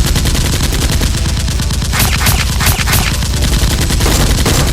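Rapid automatic gunfire, a dense fast rattle of shots with several louder sharp cracks about two to three seconds in and again near the end.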